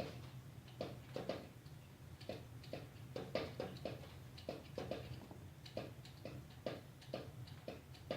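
Irregular clicking and knocking, about two or three clicks a second, from a homemade animatronic figure and its switch control panel being worked, over a steady low hum.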